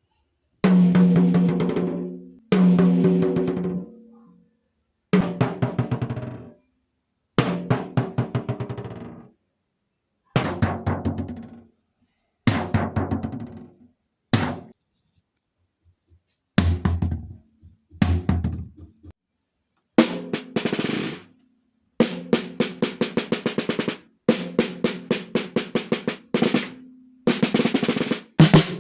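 Drum kit played in a series of short fills and rolls, each a second or two of quick strokes that rings out, separated by brief pauses. The phrases in the second half are busier and brighter.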